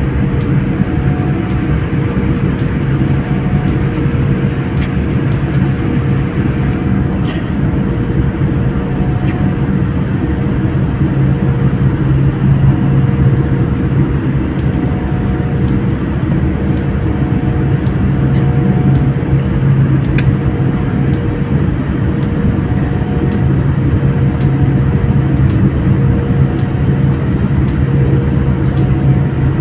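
Airliner cabin noise while taxiing: the jet engines' steady low hum, with a faint tone that comes and goes above it.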